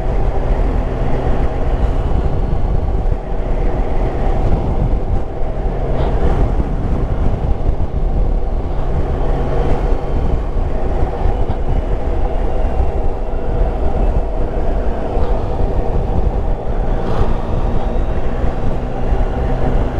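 Yamaha Tracer 9 GT's 890 cc three-cylinder engine running steadily while the bike rides along, mixed with wind rush on the helmet-mounted camera.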